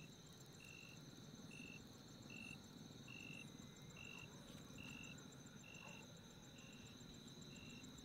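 Faint night insects, crickets: a short high chirp repeating a little more than once a second, over steady high-pitched trilling and a quick, higher ticking, with a low hum beneath.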